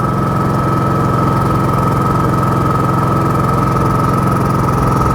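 Champion 4500-watt inverter generator's gasoline engine running steadily at an even speed, with a constant high whine above the engine note; pretty quiet for a generator.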